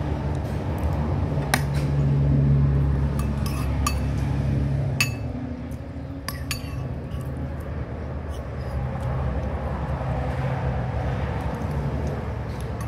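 Metal spoon and fork clinking against a ceramic plate several times, mostly in the first half, over a steady low hum.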